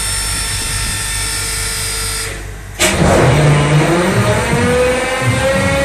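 Diesel locomotive engine starting, heard from inside the locomotive: a steady whine and hum drops away about two seconds in, then with a sudden clack the engine fires and runs with a low uneven rumble and a whine that rises in pitch as it comes up to speed.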